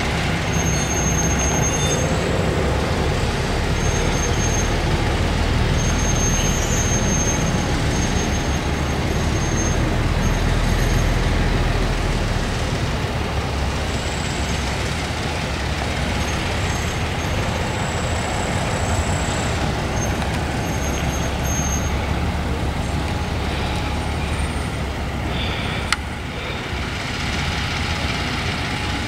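Small center-cab diesel switcher locomotive running steadily at low speed as it backs into the engine house, a constant low engine rumble. A single sharp click sounds near the end.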